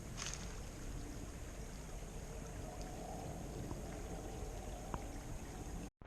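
Creek water flowing steadily over a streambed. The sound cuts off abruptly near the end.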